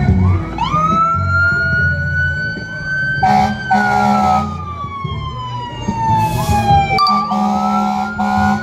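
Emergency-vehicle siren wailing: it rises to a high pitch, holds, slides slowly down, then rises again near the end. Two short horn blasts sound over it, about three seconds in and again about seven seconds in.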